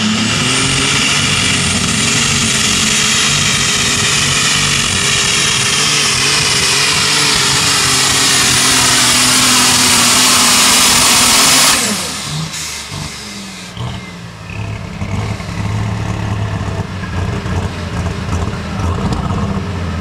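Super stock pulling tractor's engine at full throttle hauling the weighted sled, loud and steady, its pitch slowly falling as the pull goes on. About twelve seconds in the throttle is chopped and the engine drops to a lower, uneven idle.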